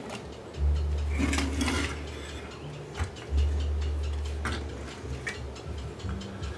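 Sharp clicks and a brief scrape as a CRT TV chassis circuit board is handled and turned over on a workbench. Underneath is a low hum that comes and goes.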